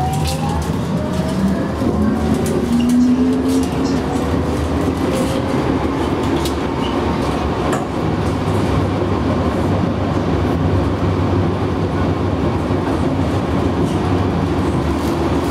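Tram accelerating, heard from inside the driver's cab: the traction motor whine rises in pitch over the first few seconds. It then settles into a steady running rumble of wheels on rail, with occasional clicks.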